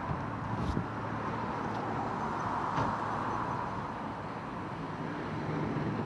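Steady outdoor background noise: a low engine hum under an even rush, with two faint clicks, one just under a second in and one near the three-second mark.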